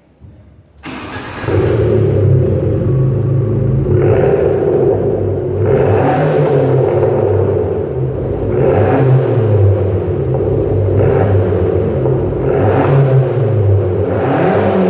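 Fiat 500 Abarth's 1.4-litre turbocharged four-cylinder engine, breathing through a Magneti Marelli Bombardon exhaust, starts about a second in and settles into a loud idle, then is revved in short blips about every two seconds, about five times.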